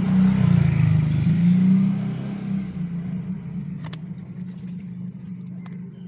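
A motor vehicle's engine passing close by, a low hum loudest in the first two seconds and then slowly fading away. Two short sharp clicks come later, about four seconds in and near the end.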